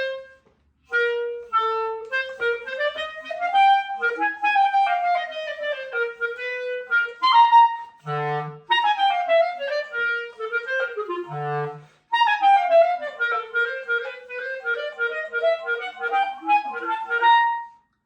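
B-flat clarinet played solo in quick scale-like runs that climb and fall. Two brief low notes come about eight and eleven seconds in, and the last phrase ends on a held high note.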